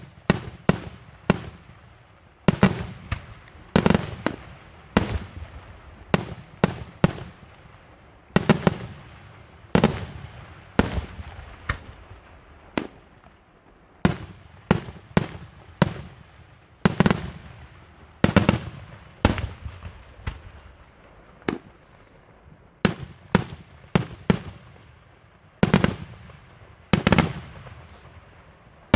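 Daytime fireworks display: a rapid series of loud firework bursts, about one or two bangs a second, each trailing off in a short echo, with a brief lull about halfway through.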